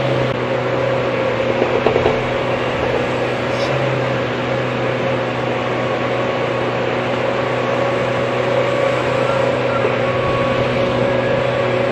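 Hydraulic excavator's engine running steadily, a constant even hum with a few faint clicks.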